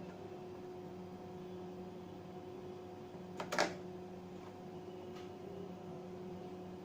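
A faint, steady hum with a few constant tones, broken a little past halfway by a brief cluster of small clicks, the last one the loudest.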